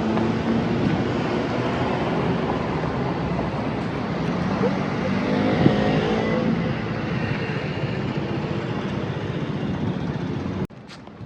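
Steady motor-vehicle noise, a dense running rush like a car on the road, with a faint rising tone about five seconds in. It cuts off suddenly near the end.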